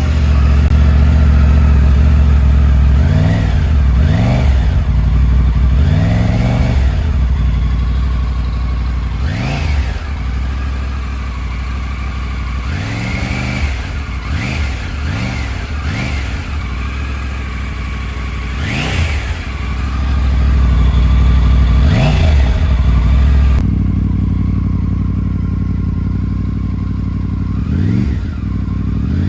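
Triumph Tiger 900's three-cylinder engine idling and revved in about ten short throttle blips, each rising and falling back to idle.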